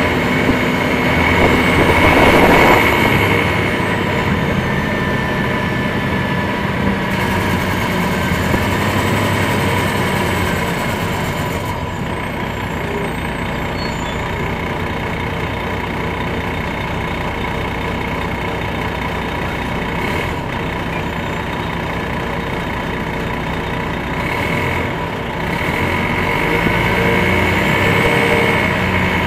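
On board a 2001 MCI D4000 coach: its Detroit Diesel Series 60 diesel engine and drivetrain run steadily, with a brief loud rush of noise about two to three seconds in. The engine pitch rises near the end as the bus pulls harder.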